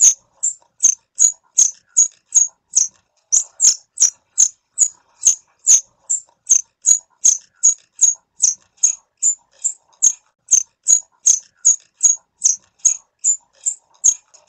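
Squirrel calling in a long run of short, high-pitched chirps, evenly spaced at about two and a half a second, with one brief gap about three seconds in.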